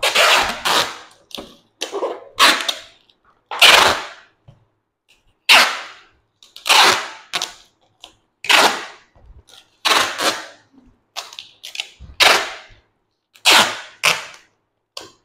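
Parcel packing: a run of sharp, short ripping or snapping noises, more than a dozen at irregular intervals of about a second, each dying away within half a second.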